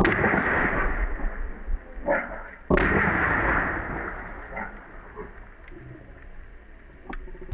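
Two gunshots about two and a half seconds apart, each followed by a rolling echo that fades over a couple of seconds.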